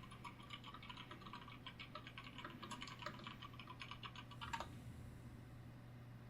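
Computer keyboard typing: a quick, steady run of keystrokes that stops with one louder key about four and a half seconds in. A faint steady low hum runs underneath.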